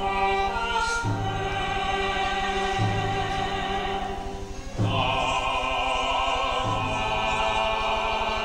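Music with sustained choir-like voices over an orchestral backing. The chords change about every two seconds, and the music softens briefly just before the middle.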